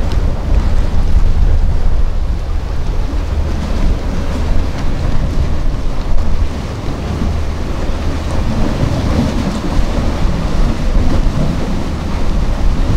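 Wind buffeting the microphone in a loud, uneven low rumble, over the steady wash of sea surf against the breakwater's concrete tetrapods.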